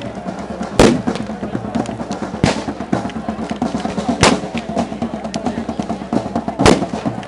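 Procession drums beating a fast, dense rhythm, with four loud sharp bangs going off over it.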